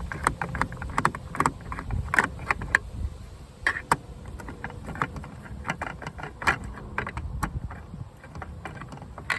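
Irregular small clicks and taps of a hand screwdriver and a loose screw working at the plastic interior door trim panel of a van, as a screw is backed out.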